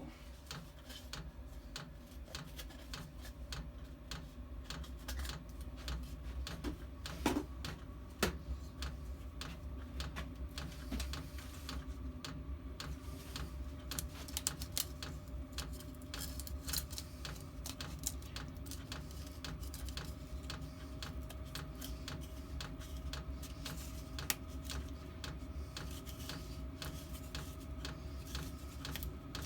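8 kW 12-volt all-in-one diesel air heater starting up: its fuel dosing pump ticking steadily over the whir of its fans, the whir rising slightly in pitch in the second half as the heater comes up to heat. Two louder knocks come about seven and eight seconds in.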